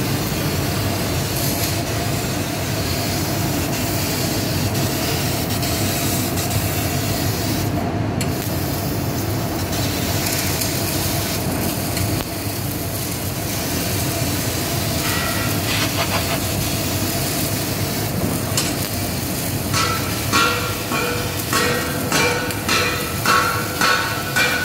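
Fiber laser cutting machine running while it cuts sheet metal: a steady rushing hiss with a faint hum. Near the end, short pitched chirps repeat about once or twice a second as the cutting head works.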